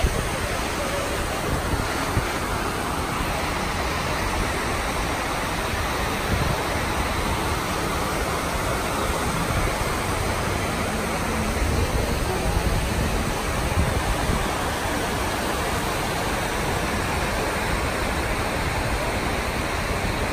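Steady rush of water falling down the walls of the 9/11 Memorial's reflecting pool into the basin below.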